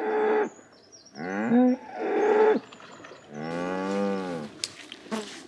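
Cows mooing three times in a row; the third moo is the longest, its pitch rising and then falling.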